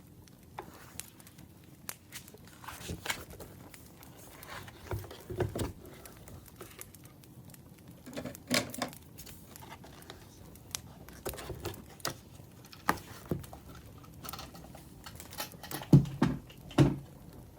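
Burning firewood crackling with irregular sharp pops, mixed with a few duller soft knocks. The loudest two knocks come near the end.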